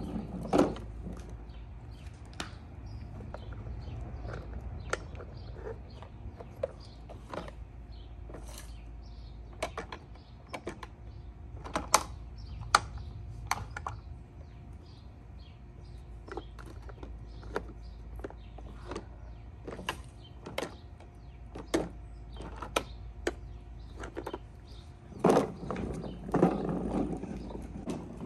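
Plastic toy garbage truck parts clicking and clattering as they are handled, with scattered sharp clicks. A denser run of mechanical rattling comes near the end.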